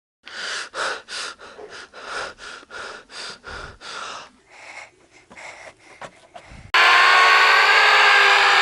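Rapid panting breaths close to the microphone, about three a second, growing fainter. About two-thirds of the way in, a sudden loud blast of layered, shifting pitches cuts in and holds, like a yelling sound effect.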